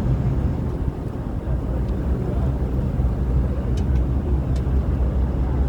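Steady low rumble of a passenger ferry's engines running under way.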